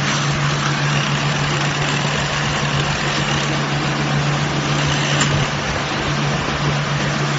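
Silage baler machine running steadily: a constant low hum under broad mechanical noise.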